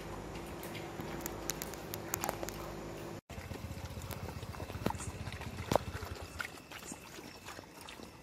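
Dogs eating: small wet clicks and smacks of chewing and lapping at food, over a steady low hum in the first few seconds. The sound breaks off for an instant about three seconds in and goes on with several dogs feeding, with a couple of louder clicks.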